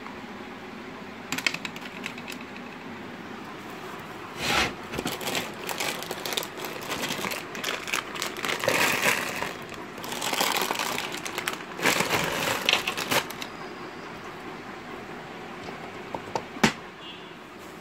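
Plastic bags and packets crinkling and small items clicking and knocking as a hand rummages through a cluttered kitchen shelf, in several bursts over about nine seconds, over a steady background hum. A single sharp click or clink sounds near the end.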